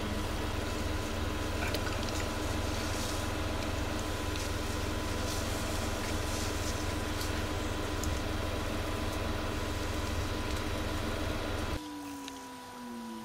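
Car engine idling, a steady low hum that cuts off abruptly about a second before the end.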